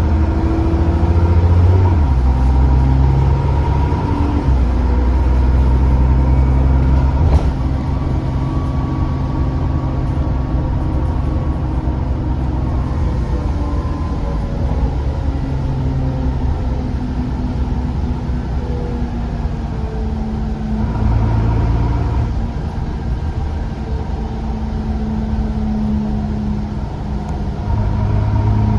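Diesel bus engine heard from on board, pulling hard with its pitch stepping as the automatic gearbox changes gear, and a thin turbocharger whistle over it. A sharp knock about seven seconds in; the engine eases off after that and picks up again around twenty seconds in.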